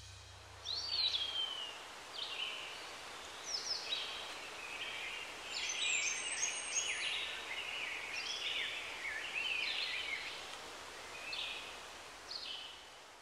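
Wild birds singing and calling, with several short chirps, slurred whistles and trills overlapping, over a steady outdoor hiss.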